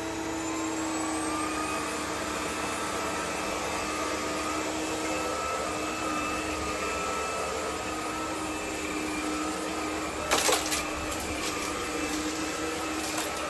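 600 W cordless stick vacuum cleaner running on its high setting: a steady motor whine over rushing air. Its pitch rises in the first second or two as the motor speeds up, then holds. A brief clatter of clicks comes about ten seconds in.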